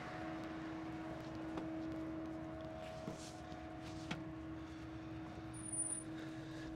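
Timber truck's diesel engine running steadily with an even hum. A few light knocks come in the first two-thirds, and a short high chirp sounds near the end.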